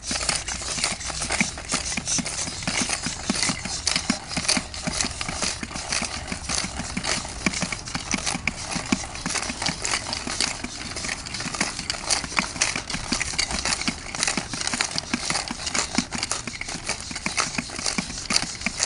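Hand percussion playing a fast, dense rhythm: a shaker rattling continuously over light, dull drum knocks.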